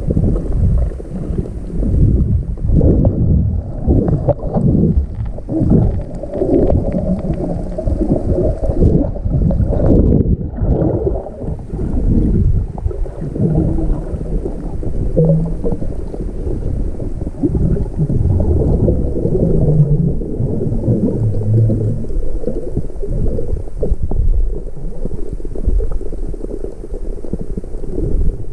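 Muffled underwater water noise: low, uneven sloshing and rumbling of water moving against the camera underwater.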